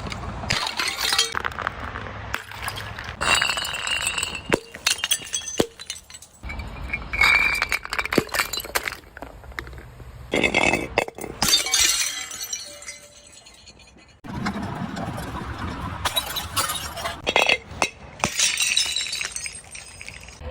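Glass bottles shattering one after another, each break a sharp crash followed by shards clinking and tinkling.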